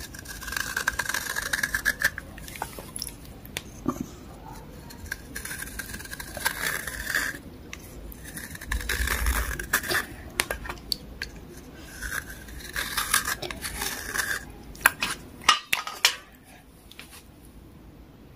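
A kitchen knife blade scraping the softened outer layer off water-soaked grey chalk bars. The scraping comes in repeated spells of strokes with short pauses, and light clicks and taps of the blade fall between them.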